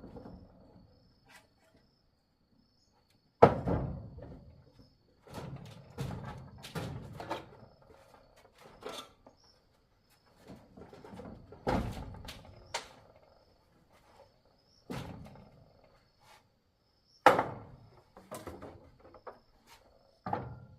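Irregular knocks and thuds of objects being handled and set down, with three sharp, loud thunks spread through and smaller clatter between them.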